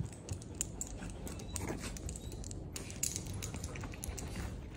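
Two small dogs scuffling in play on a leather sofa: a stream of quick scratches and clicks from their paws and claws on the leather.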